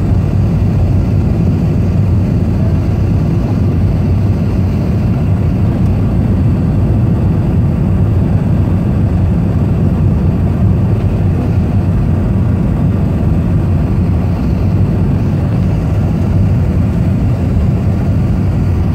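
Steady low rumble of an airliner's engines and rushing air, heard inside the passenger cabin on final approach to landing.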